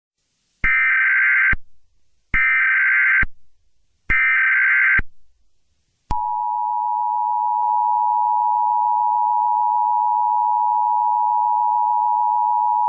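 Emergency Alert System signalling: three short bursts of SAME header data tones, about a second each, then from about six seconds in the steady two-tone EAS attention signal.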